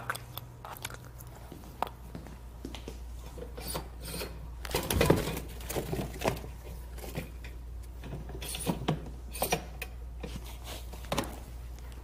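Scattered light clicks, knocks and rattles from a plastic pet carrier being handled as an owl is put back inside, busiest about five seconds in, over a steady low hum.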